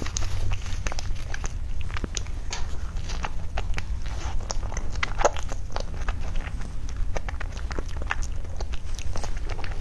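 Close-miked chewing and mouth sounds of someone eating a soft food: many small wet clicks and smacks, over a steady low hum.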